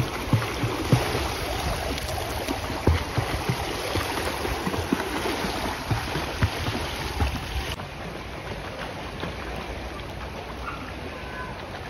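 Pool water splashing and churning as swimmers kick along the surface, with low thuds from the kicks. The splashing becomes quieter about eight seconds in.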